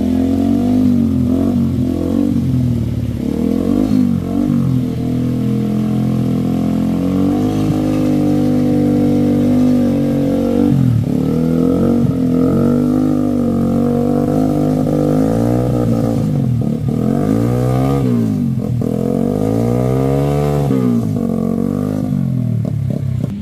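Small underbone motorcycle engine revving hard under load as it climbs a steep slope of loose rubble and mud, its pitch rising and falling again and again as the throttle is worked.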